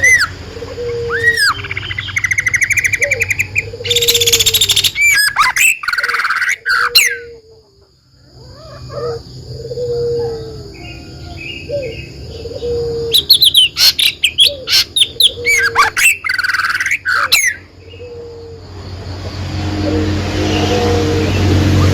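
Songbirds chirping and singing: quick trills, sharp upslurred whistles and a repeated lower note, broken by a brief lull about a third of the way in, over a steady low hum.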